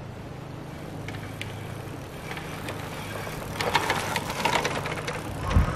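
Fat-tire full-suspension electric bike rolling over a dirt trail, its tires crunching and the bike rattling and clattering over the bumps, getting louder from about halfway through as it comes close, with a low thump near the end.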